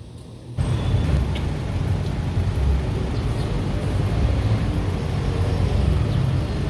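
Street traffic noise: a steady low rumble of passing vehicles that starts suddenly about half a second in, after faint quiet outdoor ambience.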